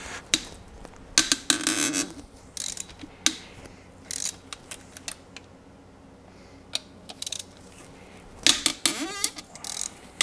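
Ratchet wrench with a 14 mm socket clicking in short rapid runs, about a second in and again near the end, with scattered single clicks and knocks between, as the side main-cap bolts of a Honda J30A4 V6 block are cracked loose.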